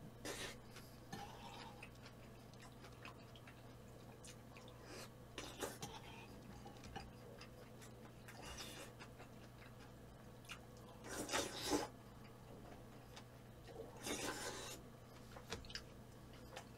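Faint eating sounds: quiet chewing and small clicks, with two short, louder noisy bursts about eleven and fourteen seconds in.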